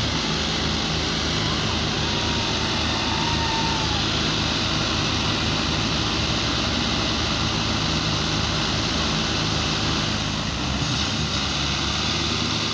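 Diesel engines of several Belarus tractors running hard under load, chained together to haul a loaded sugarcane trailer through mud; a steady, heavy engine drone.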